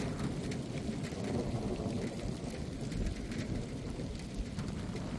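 A low, steady rumble of thunder rolling on with light rain falling. The thunder comes from a supercell, and no single sharp crack stands out.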